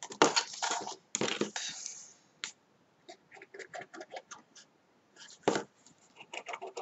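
Cardstock boxes handled over a cutting mat: two scratchy paper rustles of about a second each, then light clicks and a single sharp tap about five seconds in as card meets card or the mat.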